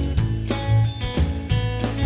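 Background music with guitar over a bass line, with a steady beat.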